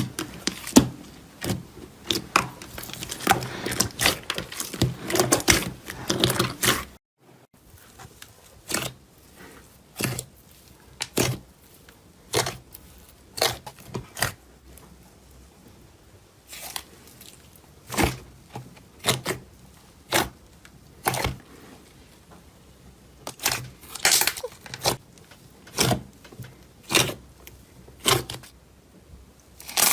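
Slime being handled: a dense run of crackling, popping clicks, a brief break, then single sharp pops about once a second.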